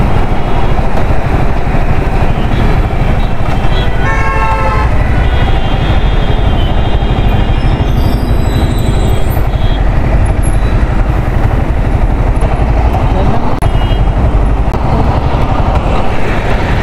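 Wind rush and road noise of a motorcycle ride, picked up by a microphone on the rider's helmet. A vehicle horn sounds for about a second, roughly four seconds in.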